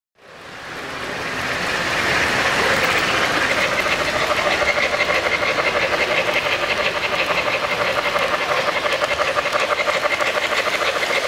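3-rail O-scale model passenger train running on the layout track: a steady motor hum with a fast, even clatter of wheels on the rails. It fades in over the first two seconds.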